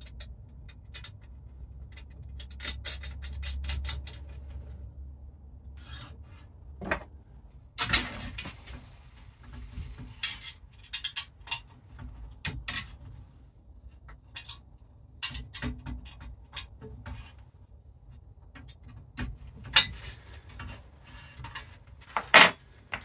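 Steel parts handled on a wooden workbench as a steel bar is bolted onto an old table saw blade: scattered metallic clinks and scrapes of the bar, blade, bolts and a spanner, some sharper knocks about eight seconds in and again near the end.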